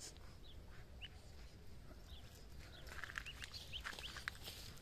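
Muscovy ducklings peeping: scattered short, high peeps that come thicker from about three seconds in.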